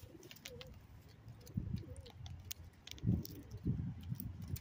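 Faint cooing of feral pigeons, short low calls, with a few scattered light clicks.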